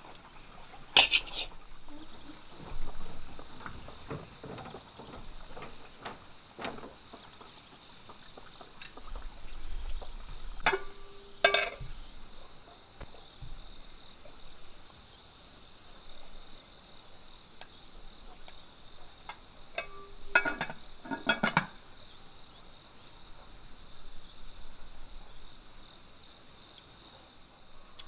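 Insects buzzing steadily in a high band, with a few sharp clinks of a metal spoon and chopsticks against ceramic bowls: one about a second in, and short clusters around the middle and about two-thirds of the way through.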